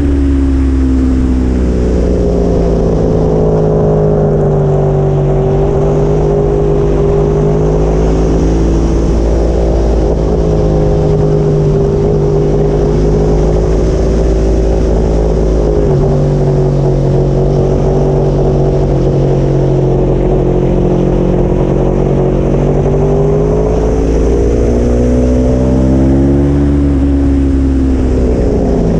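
Aprilia Tuono motorcycle engine running hard at speed, heard from an onboard camera with heavy wind rumble. The engine note holds fairly steady through the middle with one step down partway through, and falls near the start and again near the end as the bike slows for corners.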